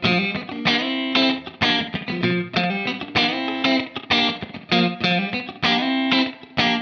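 James Tyler Japan Studio Elite HD electric guitar played through a clean tone in a funk rhythm: short, choppy chord stabs with brief gaps between them, several a second.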